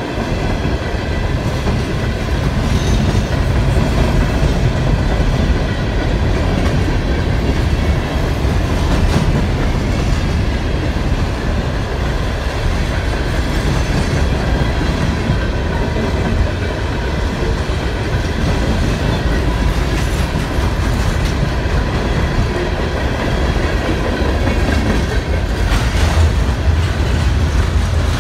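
Norfolk Southern freight train's cars rolling past, loud, with a steady deep rumble of wheels on the rails that goes on without a break.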